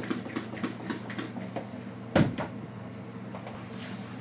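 Marker being wiped off a whiteboard with a tissue, with quick rubbing strokes in the first second and a half. A single loud knock comes about two seconds in, followed by quieter rubbing.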